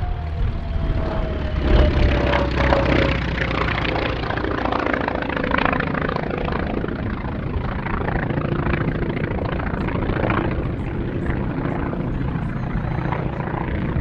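Grumman Wildcat's radial engine and propeller during a low display pass. A whine falls in pitch over the first few seconds as the fighter goes by, and a steady drone with a deep rumble follows.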